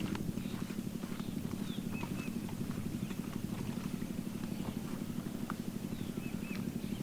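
A steady low drone with a fast flutter, like a running motor, with a few faint high chirps over it.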